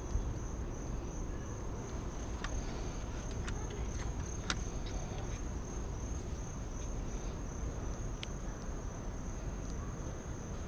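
Steady high-pitched trilling of insects, with a low rumble underneath and a few small sharp clicks.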